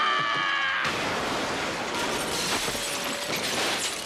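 A cartoon character's high scream, cut off about a second in by a car crash: crunching metal and shattering glass through the rest.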